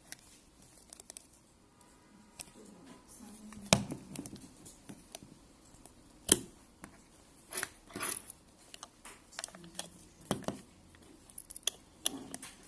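Scattered clicks, taps and light rustling from hands handling a Bluetooth speaker and small tools during disassembly, with a few sharper knocks, the loudest about 4 and 6 seconds in and again about 10 seconds in.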